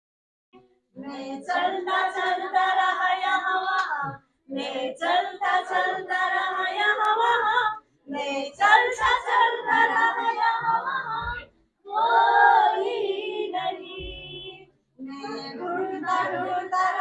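A group of young children singing together without accompaniment, in short phrases with brief pauses between them.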